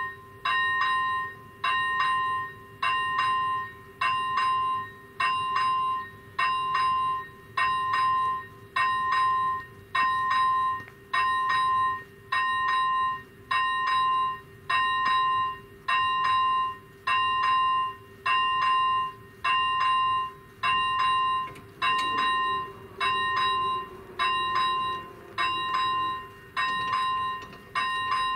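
Railway level-crossing warning bell striking about once a second with a ringing, pitched tone, signalling that a train is approaching and the crossing is closing.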